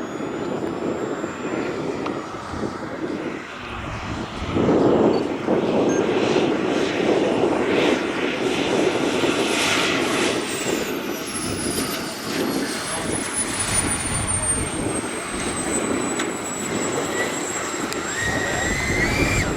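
Radio-controlled MiG-17 model jet on its landing approach, with a steady rush of jet noise that grows louder about five seconds in. A high turbine whistle slides down in pitch partway through and then holds steady. A short rising tone comes near the end.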